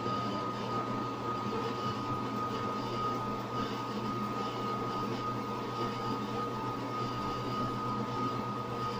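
Drill press running steadily with a twist bit cutting a hole in a metal angle piece: a constant motor hum with a steady high whine over the noise of the cut.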